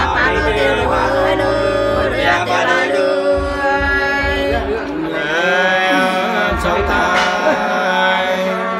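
Nùng sli folk singing: voices in a slow, drawn-out two-part melody with long held, wavering notes. The women sing first, and men's lower voices take over about halfway through.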